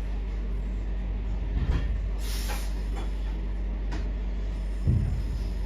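Cabin sound of a Class 323 electric multiple unit standing before departure: a steady low hum, a short hiss of air about two seconds in, and a low thump near the end.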